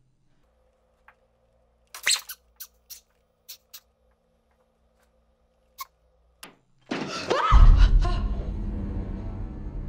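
Horror-film sound design: a few sharp clicks and knocks over a faint hum, then about seven seconds in a loud scary-music sting hits with a sweeping tone and a deep low rumble that carries on as tense score.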